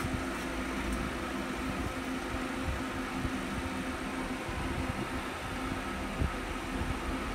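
Steady mechanical hum with a few constant low tones held throughout, with no clear rise or fall.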